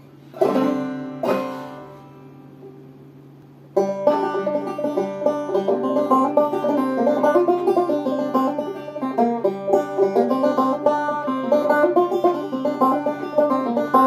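Five-string banjo in sawmill tuning: two ringing chords are struck about half a second and a second in and left to die away, then about four seconds in a steady two-finger picked melody starts. A faint steady low hum lies underneath.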